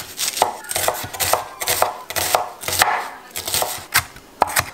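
Füri santoku knife chopping red onion on a wooden cutting board: a quick, uneven run of blade strokes knocking against the wood.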